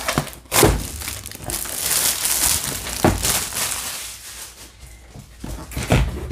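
Clear plastic sleeve crinkling as it is pulled off a cardboard kit box, with three soft thumps as the box is handled.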